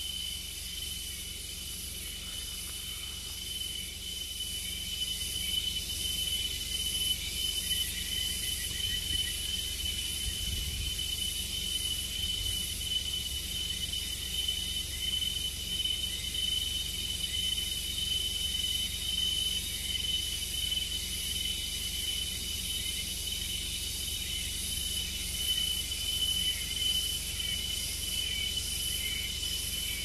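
Insects trilling in a continuous chorus: one steady high-pitched tone with a pulsing hiss above it.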